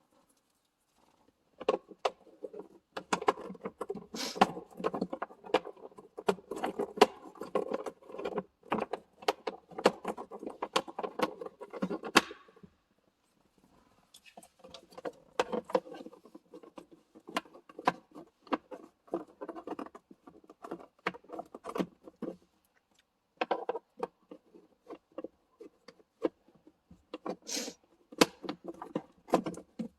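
Plastic interior parts being handled: rapid clicks, taps and rattles in bursts, with two short pauses.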